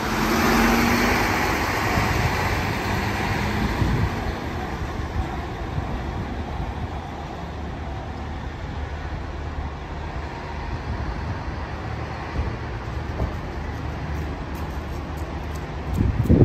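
City street traffic at a bus interchange: diesel buses and cars running, loudest in the first few seconds as a bus close by moves off, then a steady rumble of engines and tyres. A brief louder rumble comes just before the end.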